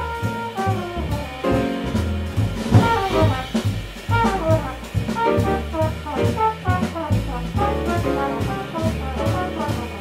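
Live jazz quintet: a trombone solos in quick runs of notes over piano, walking upright bass and a drum kit.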